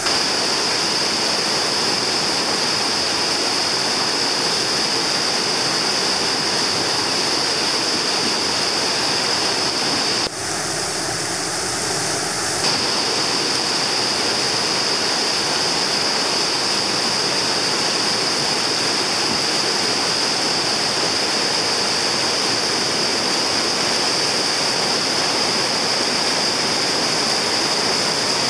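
River rapids rushing steadily, a continuous loud wash of whitewater, with a brief dip in level about ten seconds in.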